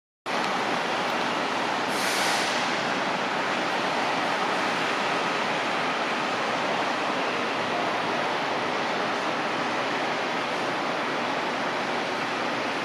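Boeing 757-200 freighter's jet engines at takeoff thrust, a steady rushing noise that briefly grows hissier about 2 seconds in.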